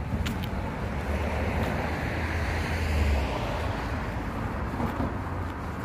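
A car driving past on the road, its tyre noise swelling to a peak about three seconds in and then fading, with wind buffeting the microphone throughout.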